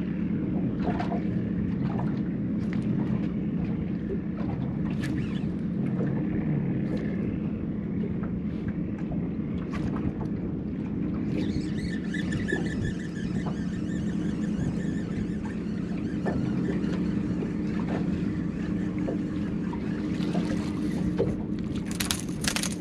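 Steady low hum of a boat motor, with scattered small clicks, while a speckled trout is fought on a spinning rod. A cluster of sharp knocks comes near the end as the fish and its cork are swung aboard.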